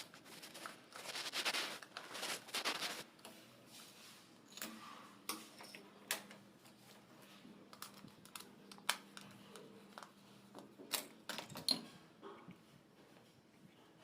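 Hand-work noises: scraping twice between about one and three seconds in, then scattered sharp clicks and knocks of tools or parts being handled.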